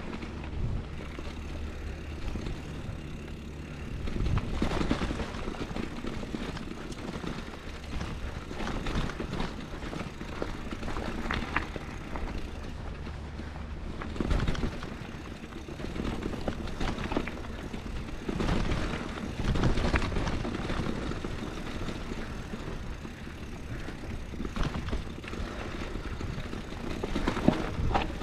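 Mountain bike riding over a rocky dirt trail: 29-inch Maxxis Dissector knobby tyres crunching and rolling on dirt and stones under a steady low rumble, with louder rough rattling surges every few seconds as the full-suspension Scott Spark bike goes over rocks and bumps.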